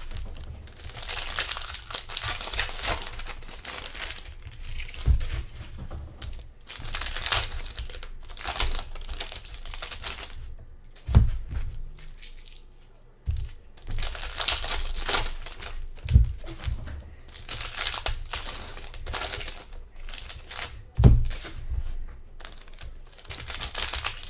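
Trading-card packaging being torn open and crinkled by hand: several stretches of crackling wrapper noise, broken by a few dull thumps.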